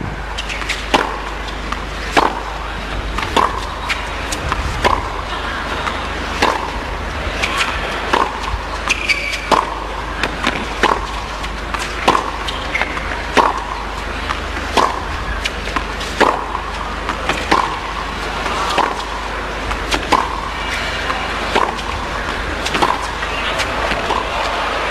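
Tennis racket strings striking the ball back and forth in a long baseline rally on a hard court, a crisp hit about every second and a third, over the steady hum of the arena crowd.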